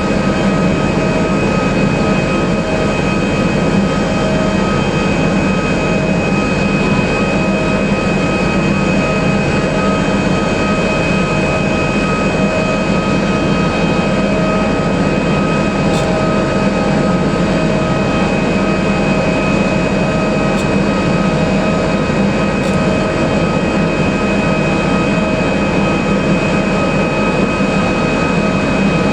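Boeing 767-300ER airliner's jet engines running steadily, a constant high whine over a low rumble that holds the same pitch throughout.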